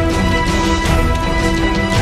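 Theme music with sustained chords over a steady beat.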